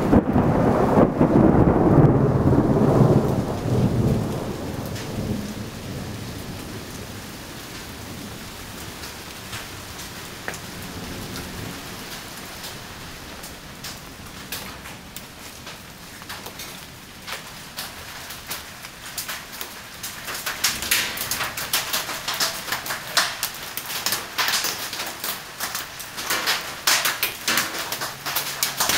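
Thunder rumbling and dying away over the first few seconds, over steady rain. From about two-thirds of the way through, heavy raindrops tap and patter close by.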